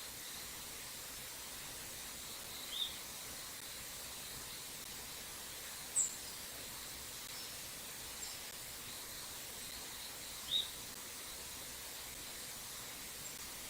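Short, sharp bird call notes, single and spaced several seconds apart, with one higher note about six seconds in, over a steady hiss of a small stream.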